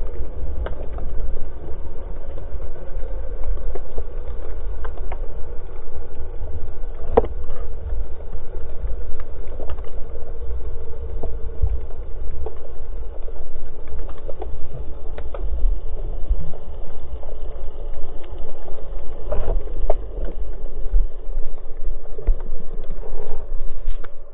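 Muffled underwater sound heard through an action camera's waterproof housing while snorkeling: a steady low rumble of water movement with a faint hum and scattered faint clicks.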